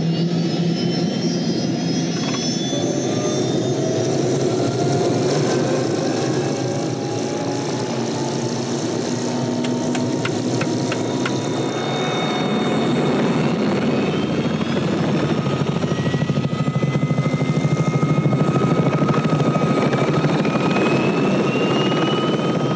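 Helicopter turbine engine spooling up, its whine rising slowly in pitch while the rotor beat builds, loudest near the end. A few sharp clicks about ten seconds in.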